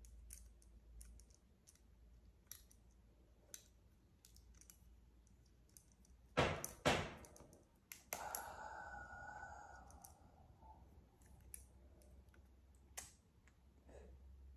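Light plastic clicks and taps of Lego Technic pieces being handled as rubber bands are threaded through their holes, with two sharper clicks a little past the middle.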